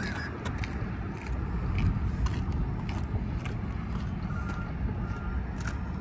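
Steady low rumble of distant vehicles, swelling a little about two seconds in, with scattered light ticks and a faint thin high tone twice in the second half.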